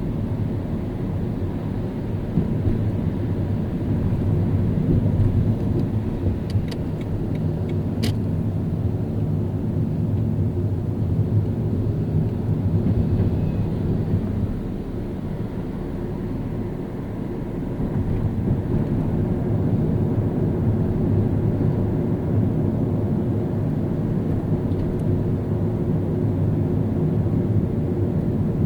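Car driving in city traffic: a steady low rumble of engine and tyre noise that eases briefly about halfway through, with a single sharp click about eight seconds in.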